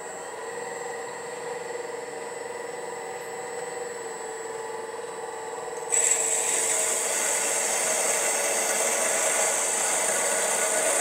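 MN-80 lathe running: the spindle drive winds up to speed at the start and then holds a steady hum. About six seconds in, a louder, steady scraping noise of the tool cutting joins it as the 30° internal cone of the collet chuck is bored.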